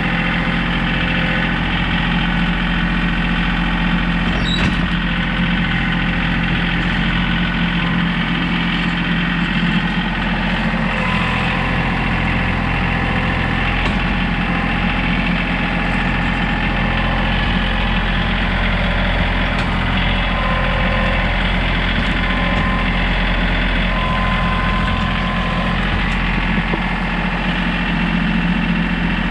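John Deere compact tractor's three-cylinder diesel engine running steadily while the front loader and grapple are worked.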